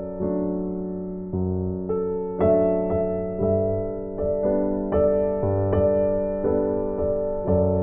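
Background piano music: slow, gentle chords and notes struck about once a second, each fading away.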